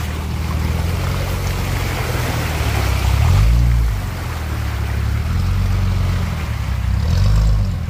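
Nissan Patrol 4x4 engine pulling at low speed through deep mud and water, its tyres churning and splashing. The revs rise and fall back twice, about three seconds in and again near the end.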